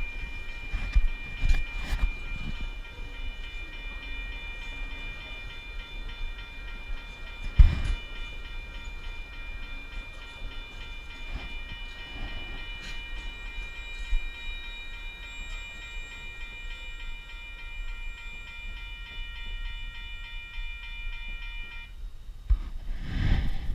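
A freight train of empty flat wagons rolling through a level crossing with a low rumble and occasional loud clunks, the biggest about seven and a half seconds in. Over it the crossing's warning bell rings steadily at a high pitch, then stops abruptly near the end once the last wagon has cleared.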